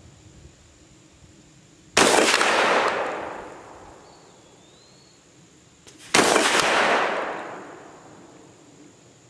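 Two 12-gauge shotgun shots, about four seconds apart, from an SDS Titan TTF-12 semi-automatic shotgun firing slugs. Each is a sharp blast followed by an echo that dies away over about a second and a half.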